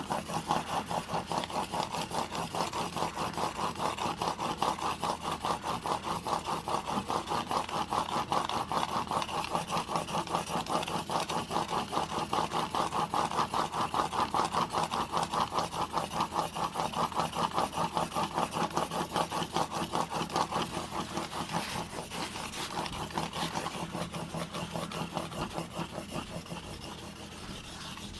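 Steel single-bevel broadhead, held in a roller sharpening guide, stroked rapidly back and forth on a 2000-grit diamond plate: an even rasping rub at about four strokes a second, lighter in the last few seconds. This is the fine-grit honing stage of the edge.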